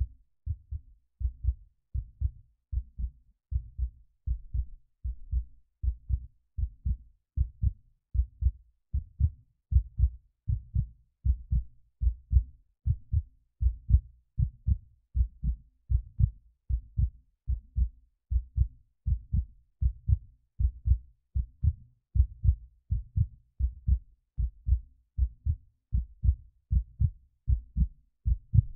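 Heartbeat sound effect: steady low thumps, about two a second, repeating evenly throughout.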